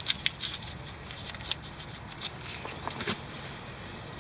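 Gloved hands handling cleaning wipes and rubbing them on a rubber CV boot: scattered rustles and short crinkling clicks, several right at the start and more a couple of seconds in, over a steady faint hiss.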